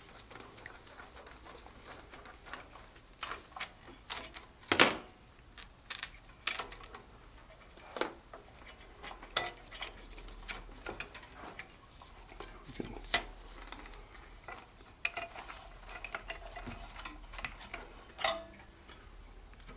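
Irregular metallic clicks and clinks of hand tools and a socket wrench working on engine fasteners, with a louder clank about five seconds in.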